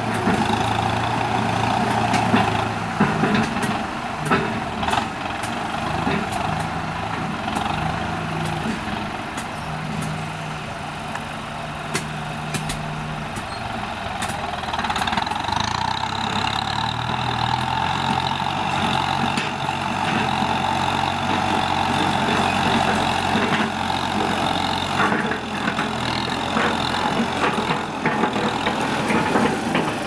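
Kubota M9540 tractor's four-cylinder diesel engine running steadily while working the field, its pitch shifting up and down a few times, with scattered short knocks and clatter over it.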